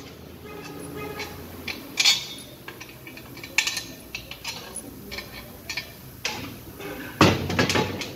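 Metallic clinks and knocks of bolts and hand tools against a Chevrolet 4L60-E transmission case as it is taken apart, with a louder burst of clatter near the end.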